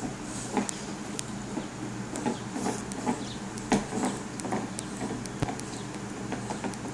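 English bulldog gnawing a deer antler: irregular hard clicks and scrapes of teeth on antler, about two a second.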